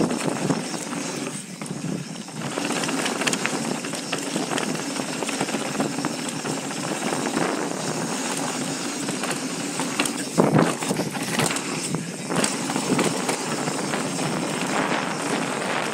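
Mountain bike ridden fast down a dirt trail, heard from the rider's helmet: steady wind rush over the microphone mixed with tyre noise on dirt and rattling from the bike. There is one loud clattering knock about ten and a half seconds in.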